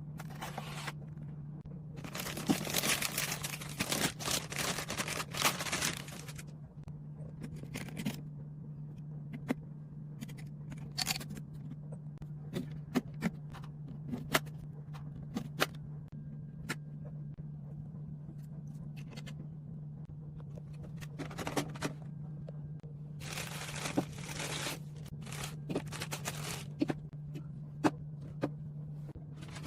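Hands handling PC parts and their packaging: two longer spells of rustling and scraping, about two seconds in and again near the end, with scattered clicks and light knocks in between, over a steady low hum.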